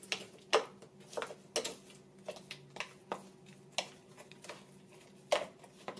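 A metal spoon stirring coarsely ground almonds in a plastic blender cup, clicking and scraping against the cup's sides in about a dozen irregular strokes.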